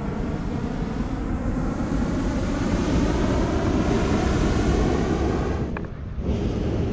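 Hot-air balloon propane burner firing in one long, steady blast that stops about six seconds in.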